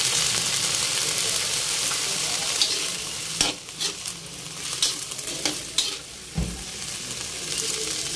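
Yard-long beans sizzling in a hot metal wok with a little water just added, a steady hiss. From about three and a half seconds in, a metal spatula stirs and tosses them, scraping and clicking against the wok several times, and the hiss picks up again near the end.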